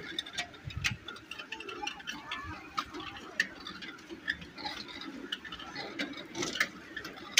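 Small ride-on park train car clicking and rattling as it rolls along its narrow track, a string of irregular sharp ticks.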